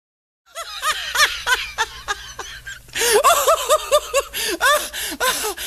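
People laughing in repeated short high-pitched bursts, starting about half a second in and getting louder about three seconds in.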